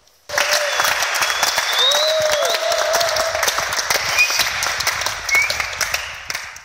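A small group clapping their hands in applause, starting suddenly just after the beginning and fading out near the end, with a few voices calling out over the clapping.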